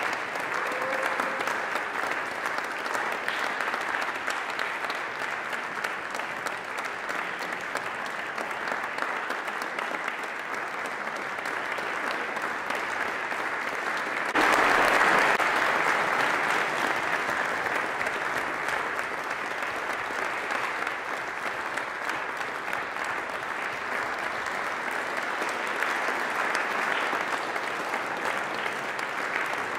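Audience applauding, a dense steady clapping that grows suddenly louder for a couple of seconds about halfway through.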